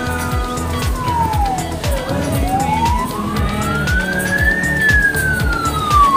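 Siren of a small ambulance in a slow wail: the pitch falls to its low point about two seconds in, climbs for a couple of seconds, then starts falling again. It grows louder near the end as the ambulance draws close.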